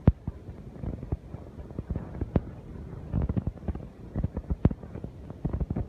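Irregular knocks and taps of wood being handled at a workshop bench, with three sharp clicks about two seconds apart.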